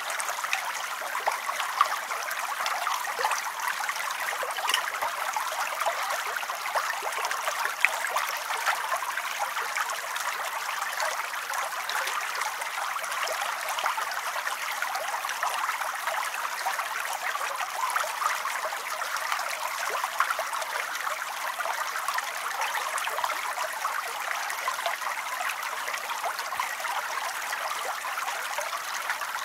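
A thin stream of water pouring from a pipe spout into a full bathtub, trickling and splashing steadily.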